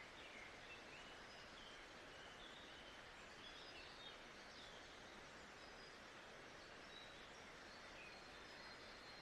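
Faint nature ambience: a steady soft hiss with scattered faint, high bird chirps.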